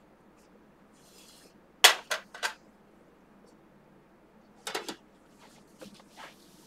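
Communion cups being handled: a brief rustle, then three sharp clicks in quick succession about two seconds in, another cluster of clicks near five seconds, and fainter taps near the end.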